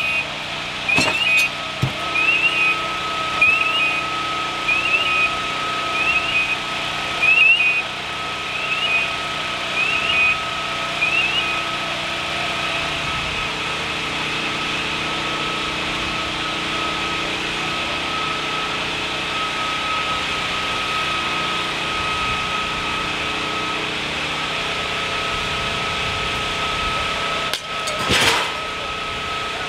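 A fire engine's engine and pump run steadily under a constant whine. For the first eleven seconds or so, a short electronic chirp repeats a little more than once a second. Near the end comes one brief, loud rush of noise.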